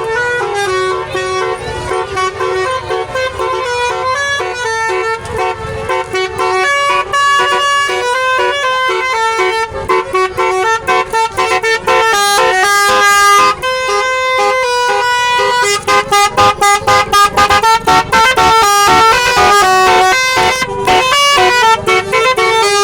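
Basuri-type 'telolet' multi-tone bus horn playing a long melody of stepped notes, pitch jumping several times a second. About two-thirds of the way in it switches to rapid staccato toots.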